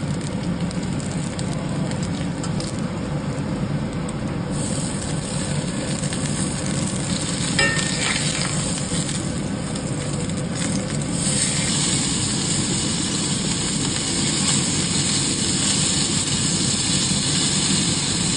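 Wagyu–Welsh Black cross chuck steak searing in a hot cast iron skillet, sizzling steadily. The sizzle grows louder and brighter about eleven seconds in, with a small scrape or click a little earlier.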